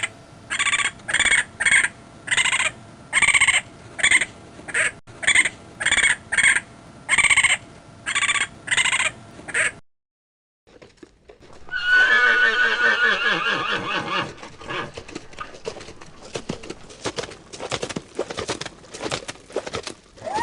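A series of short, evenly spaced pitched sounds about twice a second, then a short silence and a horse's loud, quavering whinny falling in pitch, followed by a rapid run of clicks.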